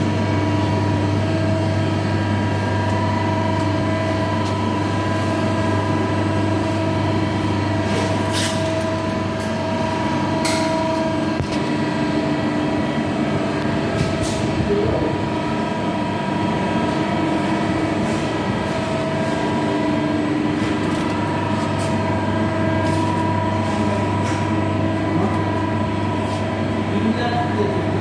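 CNC lathe running: a steady machine hum carrying several held whining tones, with a few sharp ticks about eight and ten seconds in.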